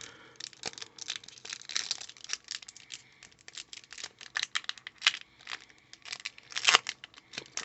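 Pokémon trading cards and their packaging being handled: a run of crinkling, rustling and light taps, with a louder crinkle near the end.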